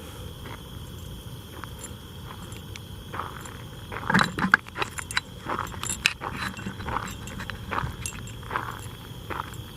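Irregular light clinks and rattles, starting about three seconds in and coming thick for several seconds, over a steady low rumble.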